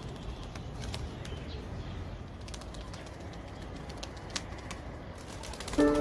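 Wings of white Mardin pigeons flapping in flight, heard as a scatter of sharp clicks over a low rumble. Music with steady held notes comes in just before the end.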